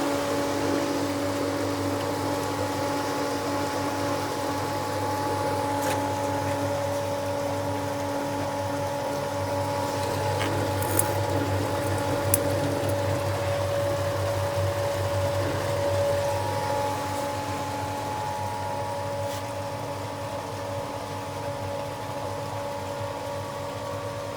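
Kamco power flushing machine's pump running steadily, pushing water through a plate heat exchanger from a combi boiler to clear the scale blocking its hot water. A steady hum with water noise, with two small clicks about halfway through.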